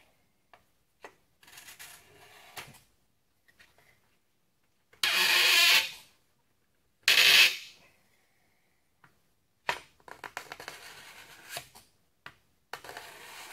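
A carbon-steel card scraper rasping along a strip of wood in several strokes, two loud ones in the middle and softer ones before and after, with a few light clicks between. The scraper's freshly turned burr edge is taking shavings.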